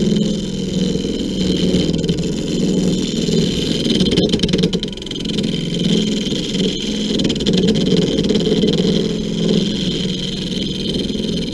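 WEN 3421 mini lathe running steadily while a gouge cuts a spinning wood cylinder: a constant motor hum and whine with the rough hiss of the cut.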